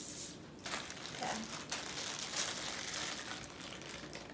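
Minifigure packaging being handled and crumpled, with a series of irregular rustles.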